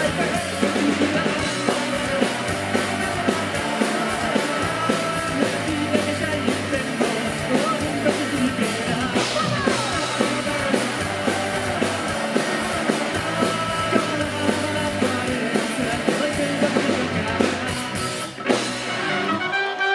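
Ska-punk band playing live: electric guitars, bass, drum kit and horns (trumpet and saxophone) in a fast passage with a steady beat. Near the end the band stops on a hit, and the drums and bass drop out, leaving a few held notes.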